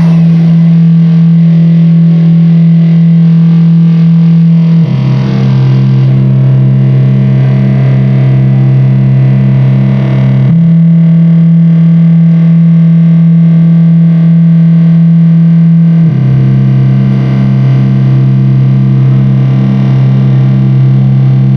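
Live amplified drone music: a loud, distorted low drone that switches between two pitches about every five and a half seconds, with a haze of noise above it.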